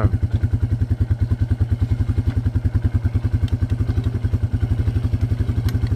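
ATV engine idling steadily, a fast, even putter that holds at one speed.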